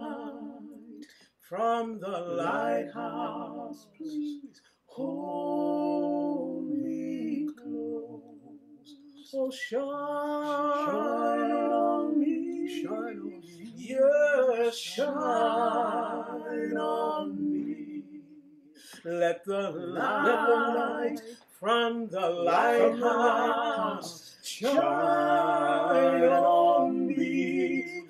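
A woman singing a cappella, several recordings of her own voice layered in harmony. The held, gliding phrases last a few seconds each, with short breaks between them.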